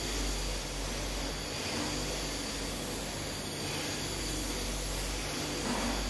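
Gravity-feed compressed-air spray gun hissing steadily as it sprays a coating, with a steady low hum beneath.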